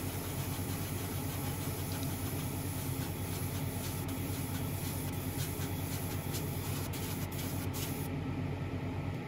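Airbrush compressor running steadily under the hiss of an airbrush spraying primer. The hiss cuts out near the end, and the compressor's low hum drops away just after.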